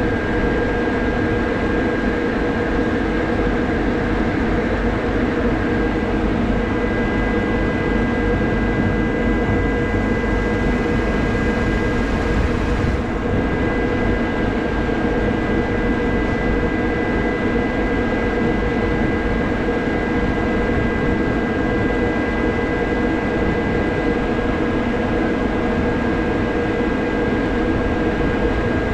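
Crane's diesel engine running steadily at working speed while it lowers a load, with a steady high-pitched whine over the engine noise.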